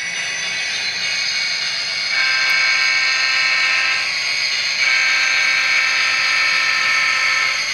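Model SD40 diesel locomotive's onboard digital sound sounding its horn twice: a blast of about two seconds, then a longer one of nearly three seconds. Under the horn there is a steady high hiss of the running model.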